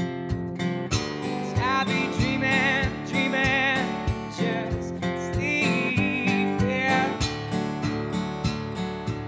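Acoustic guitar strummed in a steady bluesy rhythm. A male voice sings a wavering, drawn-out line over it from about one and a half to four seconds in, and again around six seconds in.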